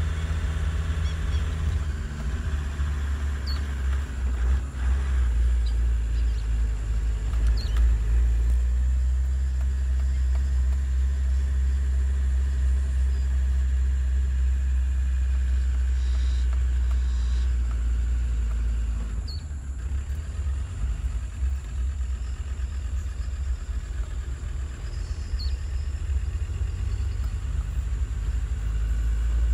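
Low, steady vehicle engine rumble, as of an off-road truck crawling slowly. It dips a little about two-thirds of the way through, and a faint thin high tone runs beneath it.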